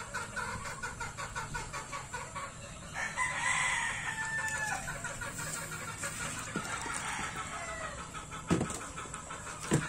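A gamefowl rooster crows once, a held call about three seconds in, over the clucking of other chickens. A few light knocks come near the end.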